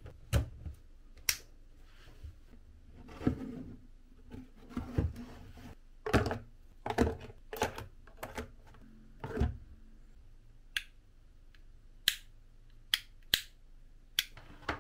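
Knocks and rattles as a cardboard desk lamp is handled and pens are dropped into its holder, then about seven sharp clicks of the inline cord switch being flicked on and off.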